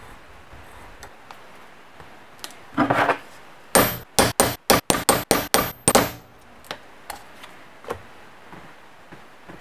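Hammer striking a metal punch held on a sheet of gasket material over a vise: about ten quick, sharp, ringing strikes in two seconds, punching a round shape out of the gasket. A short scraping rustle comes just before the strikes.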